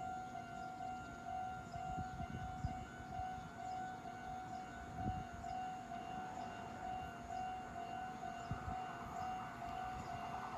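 Japanese railway level-crossing alarm ringing its rapid, steadily repeating electronic ding-ding, with low rumble underneath. An approaching train's noise grows toward the end.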